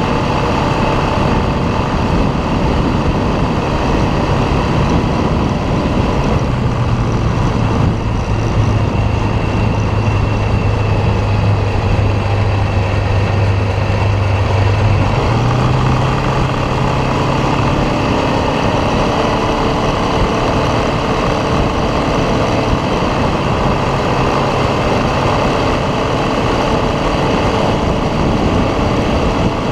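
ATV engine running steadily under way, its pitch dropping about six seconds in and rising again around fifteen seconds, under a dense rushing noise.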